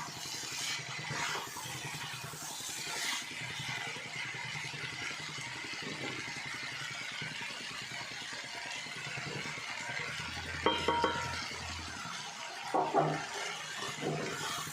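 A vegetable bhaji sizzling in a pan while a metal spoon stirs and scrapes it. A spoon strikes the pan with short ringing clanks about ten seconds in, and again a couple of seconds later.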